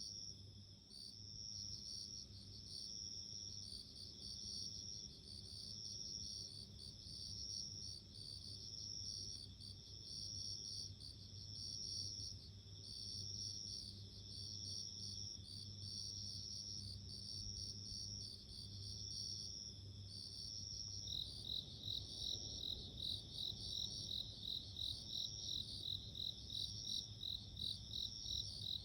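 Japanese bell crickets (suzumushi) singing: repeated ringing trills about every second and a half. About two-thirds of the way in, a second, faster pulsing song joins and becomes the loudest sound, over a faint low hum.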